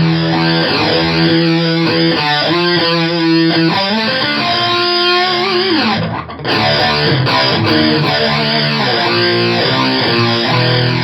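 Distorted electric guitar played through a Hughes & Kettner Black Spirit 200 amp with its onboard phaser on, sustained notes and bends swirling with a steady, even sweep. The playing drops out for a moment about six seconds in, then carries on.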